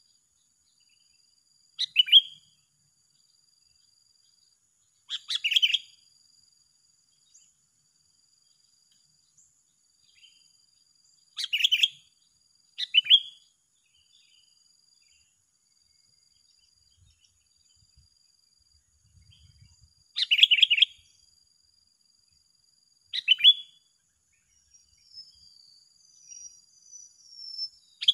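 Sooty-headed bulbuls (kutilang) answering each other in a territorial singing duel: six short, loud call phrases a few seconds apart, with softer chirps near the end, over a faint steady high-pitched insect drone.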